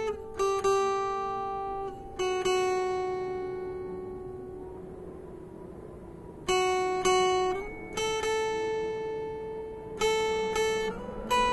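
Background music on acoustic guitar: plucked notes and strummed chords ringing out. One chord is left to fade slowly for several seconds before the playing resumes.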